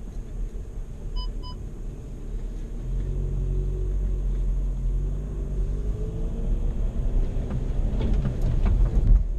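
VW Amarok's 2.0 BiTDI four-cylinder diesel pulling the pickup off-road, a low rumble whose engine note rises a few seconds in. Two short beeps come about a second in, and knocks and rattles from the truck bumping over rough ground come near the end.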